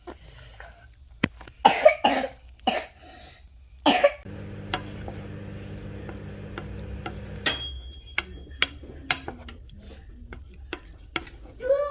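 Someone coughing from a cold: four coughs over about two seconds, the first two close together. After the coughs a steady machine hum runs for about three seconds and stops with a short high beep, amid light clicks of tableware.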